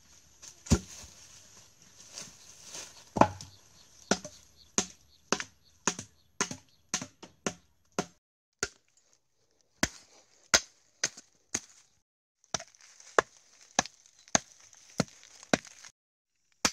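Machete blade chopping into a log of fresh wood: sharp, regular blows at about two a second, with a short lull about eight seconds in before the chopping resumes.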